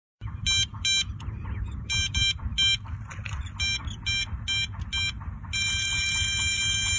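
Electronic carp-fishing bite alarm on a rod stand, giving irregular short beeps as a fish pulls line, then sounding one continuous tone from about five and a half seconds in as the line runs: a fish has taken the bait. Wind rumbles on the microphone underneath.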